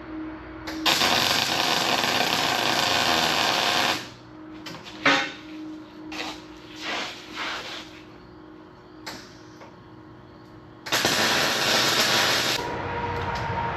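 A handheld power tool running in bursts, as in repair work: one run of about three seconds, several short bursts, then another run of about two seconds, each starting and stopping sharply. A faint steady hum lies underneath.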